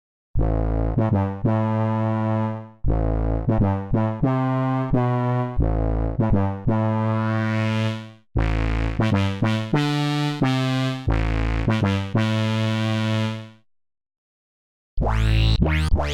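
AAS software synthesizer preset playing low sustained chords with repeated note attacks, in three phrases with short gaps between them. It falls silent about two seconds before the end, and a different, brighter patch starts just before the end.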